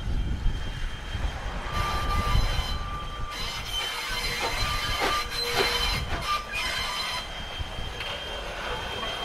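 Steam locomotive No. 89 and its train rolling slowly past, its wheels giving off a high, thin squeal that comes and goes, with a few sharp clanks about halfway through. Low wind rumble on the microphone runs underneath.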